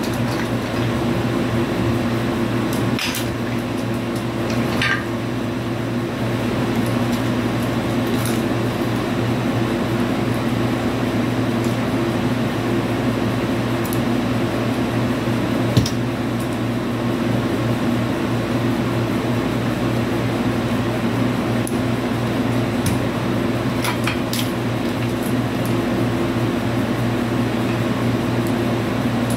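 Portable air conditioner running with a steady hum, with a few light clacks of wooden toy train track pieces being handled.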